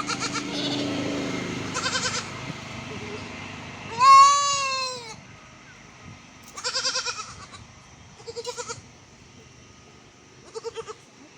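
Goat kid bleating again and again: about six calls, mostly short and quavering, with one long, loudest bleat about four seconds in whose pitch rises and then falls.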